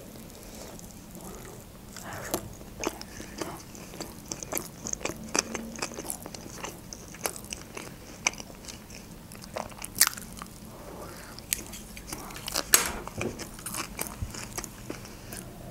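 Close-up chewing of a sushi roll topped with dried fish flakes: many small wet mouth clicks and smacks, with a few louder sharp clicks about ten and thirteen seconds in.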